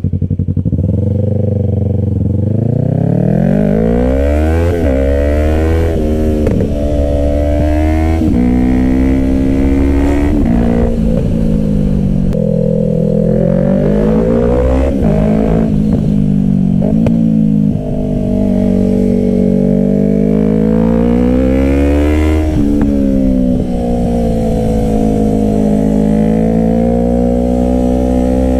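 Yamaha R3's parallel-twin engine through an M4 Street Slayer exhaust with the baffle removed, revving hard and shifting up: the pitch climbs and drops sharply at each gear change, several times over. Later the revs swing up and down more gently as the bike is ridden on.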